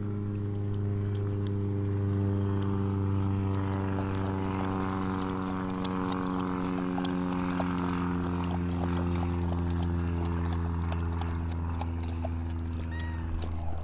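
A motor running with a steady low drone whose pitch sinks slightly, with scattered light clicks over it; the drone stops near the end.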